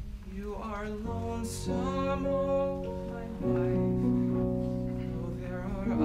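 A musical-theatre song: sustained instrumental chords with a voice singing long, wavering held notes over them.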